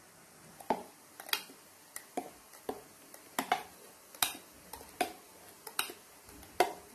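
Steel spoon scooping thick ground coconut chutney out of a steel mixer jar into a steel pot: irregular clinks and taps of metal on metal, about a dozen, roughly one or two a second.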